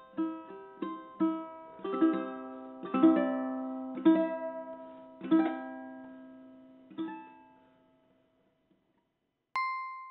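Background music: a slow melody picked on a plucked string instrument, its notes ringing and fading out about eight seconds in. Near the end a single bright ding sounds and rings on.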